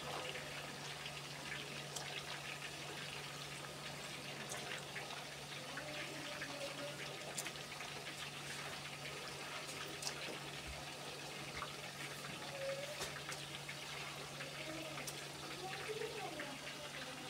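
Chicken pakoras deep-frying in hot oil in a pot: a steady sizzling hiss with many scattered crackles, over a low steady hum. This is their second fry, which makes them golden and crisp.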